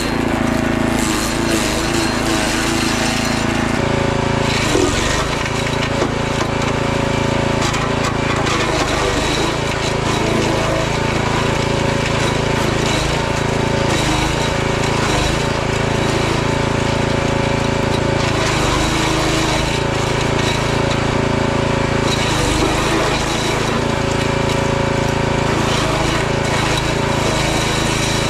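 Forest Master FM6DD compact wood chipper's 6 hp engine running steadily under load while branches are fed in and chipped, with irregular cracking and clattering of wood over the engine drone.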